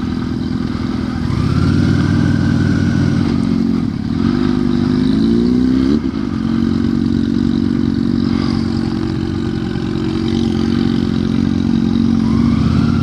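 Honda Shadow 750 V-twin motorcycle engine running at low speed. About four seconds in, the revs rise briefly, then settle back to a steady run.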